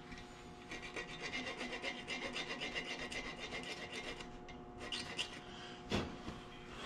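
Hand file rasping across the cut end of a .041-inch stainless steel O-ring wire, squaring the butt end perfectly flat so the straight-cut joint fits in the cylinder-head groove. A run of quick, even strokes, a short pause about four seconds in, then a couple more strokes and a single knock near the end.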